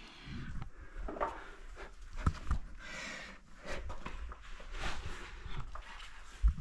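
A man breathing hard in short pants, about once a second, with a few sharp knocks from him moving over rock.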